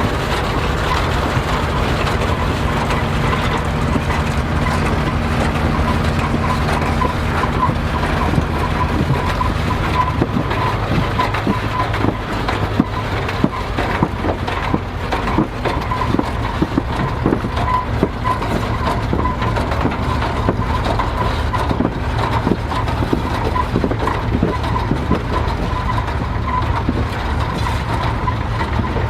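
Vintage farm tractor engine running steadily, its note shifting about a third of the way in, with irregular knocks and rattles of machinery from then on.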